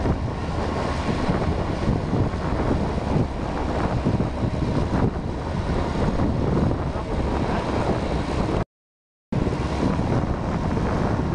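Wind buffeting the microphone over the running diesel engine of a Bell three-wheeled sugarcane loader, a steady rough noise cut by a half-second gap of silence about nine seconds in.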